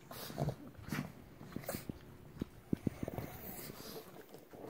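Pugs play-fighting with bitey face: a quick run of short, sharp mouth snaps and breathy huffs, the loudest a little under three seconds in.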